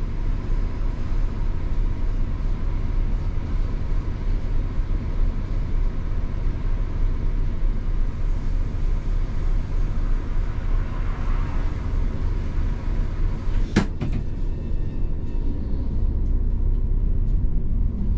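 Idling diesel coach engine heard from inside the driver's cab, a steady low rumble. A single sharp knock a little before the end comes as the dashboard camera is knocked and repositioned.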